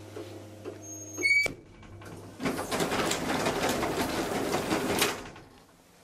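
Elevator hum ending with a short chime and a sharp click as the car stops. About a second later comes roughly three seconds of loud, rapid rattling noise, which stops abruptly.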